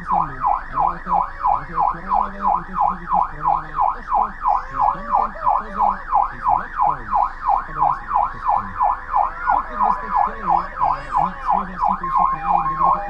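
Police siren in fast yelp mode, a rising-and-falling wail repeating about three to four times a second. Near the end a second siren joins, stepping back and forth between two pitches.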